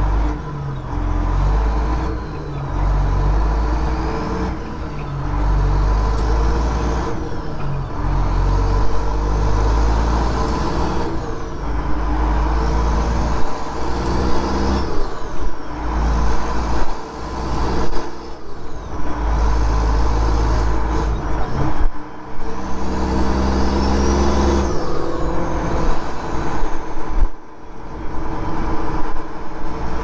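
Detroit Diesel engine of a Freightliner semi-truck, heard inside the cab, pulling away through repeated gear changes on a 13-speed manual transmission. The engine note cuts out briefly at each shift, about every two to four seconds. Between shifts the turbo whistle rises as the engine pulls, then falls away.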